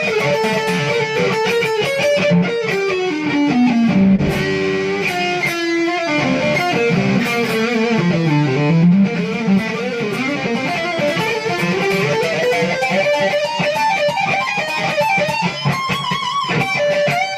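Guitar music, with an electric guitar playing fast melodic runs that sweep down in pitch and climb back up.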